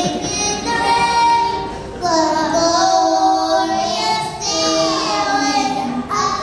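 A preschool-age girl singing solo into a microphone, in three phrases of long held notes that slide in pitch.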